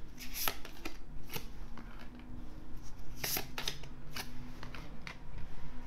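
A deck of Lenormand cards being shuffled by hand: paper cards rustling and sliding against each other, with a few crisp snaps as cards are pulled from the deck.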